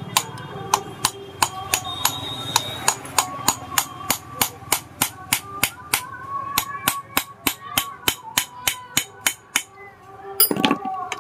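A steel hammer strikes a screwdriver used as a drift, in steady blows of about three a second, to drive a part out of a Bajaj Discover motorcycle's cylinder head. Each strike gives a sharp metallic clink. The blows stop about ten seconds in, and a louder metal clatter follows.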